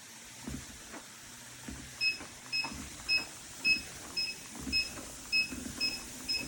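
A walking pad treadmill's control unit beeping: nine short, evenly spaced electronic beeps, about two a second, starting about two seconds in. Soft, regular thuds of footsteps on the moving belt run beneath them.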